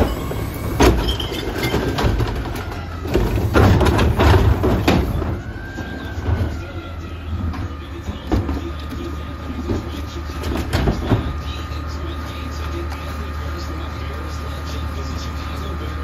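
Mack LEU garbage truck's diesel engine idling, with a steady whine over it, while a recycling cart is tipped into the front carry can: bangs and clatter of the cart and falling recyclables through the first five seconds, then a few more knocks near the middle.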